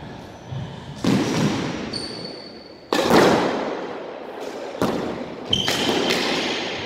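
Squash rally: sharp smacks of the ball off racket and walls every one to two seconds, each ringing on in the enclosed court, the loudest about three seconds in. Short high squeaks of shoes on the wooden floor come between the hits.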